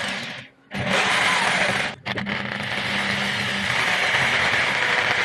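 Electric drill running a hole saw, cutting steadily with a harsh grinding whine. The sound drops out abruptly twice, about half a second in and again about two seconds in.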